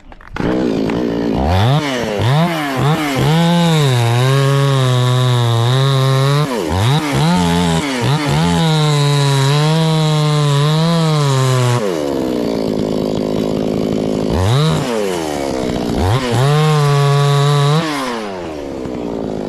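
Chainsaw engine revving in quick blips, then held at high speed for several seconds at a time. About twelve seconds in it drops to idle for a couple of seconds, then revs up again.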